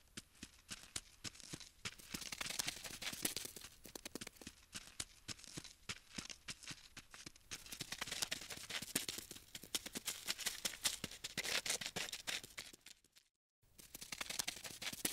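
Crawling-insect sound effect: a dense run of rapid dry clicks and scratches that swells and eases in waves, breaking off briefly near the end.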